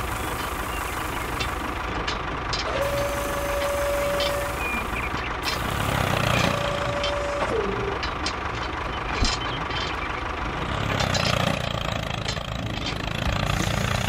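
Steady truck-like engine noise with scattered clicks. A held tone sounds for about two seconds, then again for about a second, where it ends by dipping in pitch.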